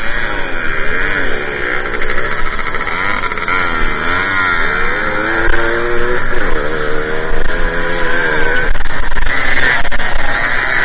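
Two-stroke moped engine under hard riding, its pitch rising and falling every second or two as the rider works the throttle over a rough dirt track, heard from a mount on the bike with a low rumble of wind and vibration on the microphone.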